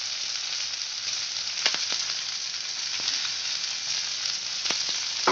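Sliced onions, garlic, ginger and curry leaves frying in a little oil in an aluminium kadai: a steady sizzle with a few sharp clicks.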